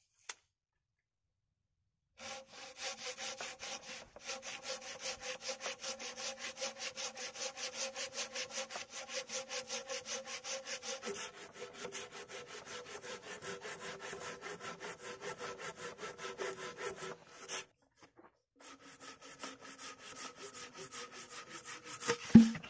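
Hand saw cutting across a bark-covered log, with quick, even back-and-forth strokes at about four a second. The sawing stops briefly, starts again, and ends with one sharp, loud knock near the end.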